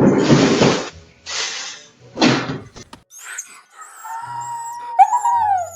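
Three short rough noisy sounds, then a short musical sting of gliding pitched tones that slide down just before the end.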